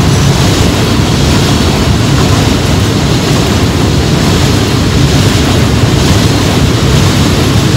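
Container freight train's wagons rolling past at speed: a loud, steady rumble of wheels on rail.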